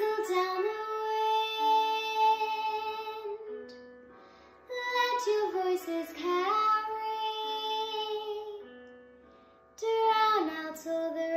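A young girl singing a slow ballad solo, in long sustained phrases with held notes and short breaths between them. A faint instrumental backing sits underneath.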